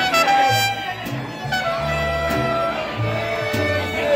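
Mariachi band playing live: long held melody notes over a moving bass line.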